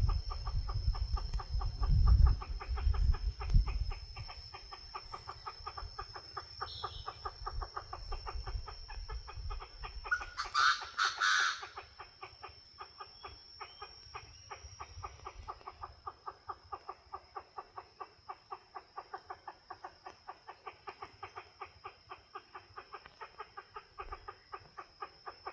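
Recorded bird call played through a loudspeaker: a fast, even series of clucking notes, about four a second, repeating on and on. A steady high tone sits behind it, with some low thuds in the first few seconds and a loud rustling burst about ten seconds in.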